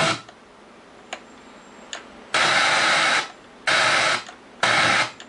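Marantz SR-73 receiver's FM tuner scanning through stations: the sound mutes, with two faint clicks, then snatches of broadcast audio come through three times, each under a second, as it stops on stations.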